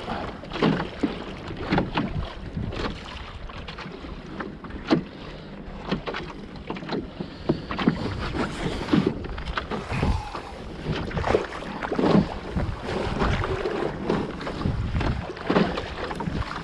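Choppy water slapping and splashing against the bow of a cedar-strip sailing canoe beating into the wind, in irregular strikes several times a second. Wind rumbles on the microphone throughout.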